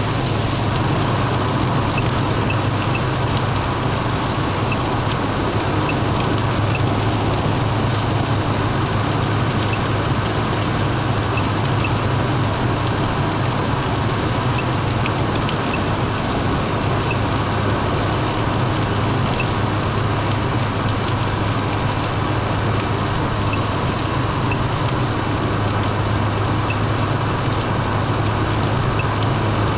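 Steady road and engine noise inside a car's cabin at expressway speed: a constant low drone under an even rush of tyre and wind noise.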